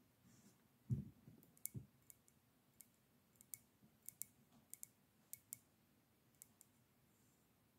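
Long acrylic fingernails tapping and clicking on a matte black ceramic mug: about fifteen light, sharp clicks at an uneven pace, often in quick pairs. A soft low thump comes about a second in, before the clicking starts.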